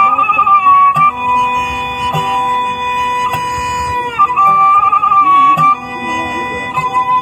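Traditional Sundanese instrumental music: a high melody held in long, steady notes that step up and down in pitch, over a plucked string accompaniment. Light taps fall about once a second.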